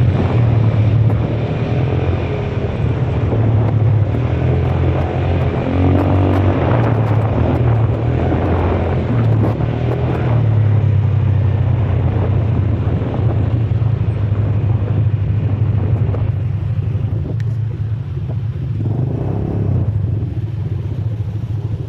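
ATV engine running with a steady low drone, its pitch wavering slightly now and then.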